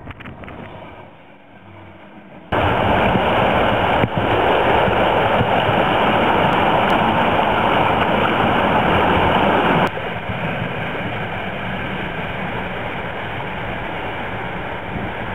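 A diesel passenger train's faint passing rumble. About two and a half seconds in it cuts to the loud rushing of whitewater churning through a channel under a bridge. About ten seconds in this drops to a steadier, somewhat quieter rush of rough water.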